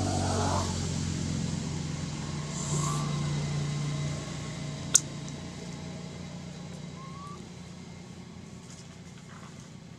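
Low, steady drone of a motor vehicle's engine that slowly fades away. A single sharp click comes about halfway through, and there are two faint short chirps.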